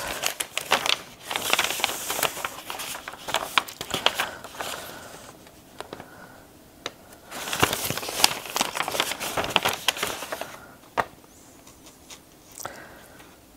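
Sheets of printed paper rustling and crinkling as the pages of a knitting pattern are leafed through, in two bouts with a quieter pause between, then a couple of light ticks near the end.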